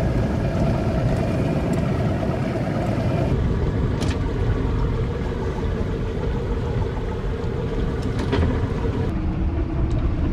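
Boat engine running steadily at slow cruising speed, a low rumble with a steady hum and a few short clicks.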